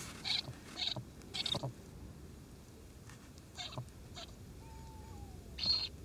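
Eurasian eagle owl chick giving short hissing begging calls at feeding time. There are six or so brief calls, three in the first two seconds, two close together midway and a louder one near the end.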